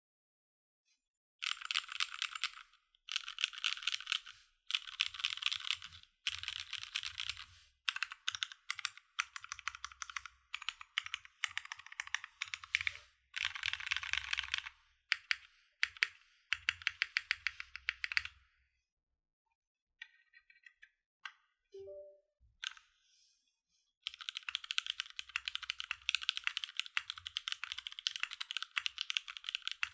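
Typing on a KMG B60 mechanical keyboard with tactile Cherry MX Brown switches on a top-mounted aluminium plate, under DCS-profile keycaps. Several quick bursts of typing with short breaks, a pause with only a few stray key sounds, then steady fast typing from about two thirds of the way in.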